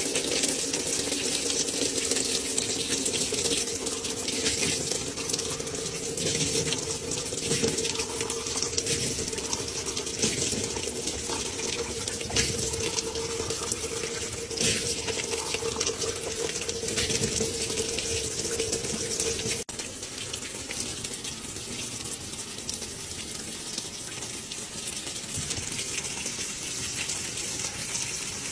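Top-loading washing machine filling: water pours steadily from the fill inlet and splashes onto the bottom of the empty stainless steel tub. A steady hum runs under the water and cuts off about two-thirds of the way through.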